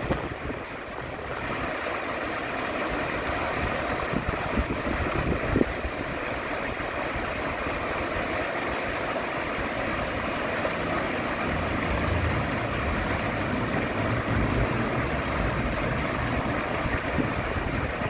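Shallow rocky stream rushing over boulders in small rapids: a steady rush of white water.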